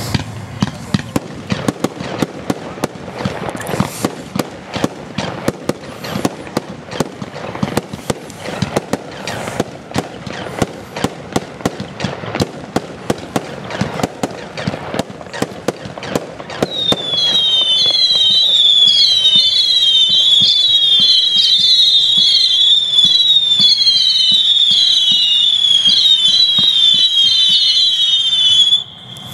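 Firework battery (cake) firing: a rapid string of shots and bursting bangs for roughly the first seventeen seconds, then a long run of shrill whistles, one after another with rising and falling pitch, until it cuts off abruptly near the end.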